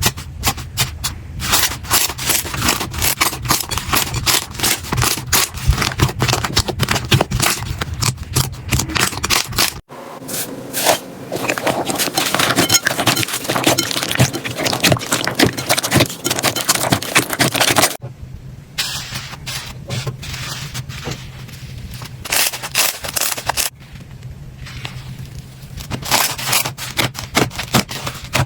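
Slime being squeezed and poked by hand: dense, fast runs of sticky crackling and popping clicks. The sound changes abruptly a few times, quieter in the later part.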